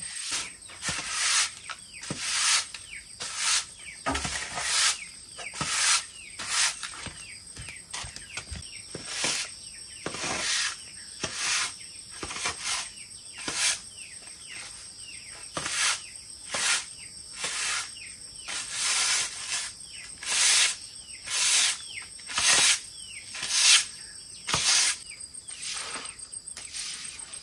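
Rhythmic swishing strokes of a hand tool, roughly one a second, each a short rush of noise, as when grass is cut or scraped away.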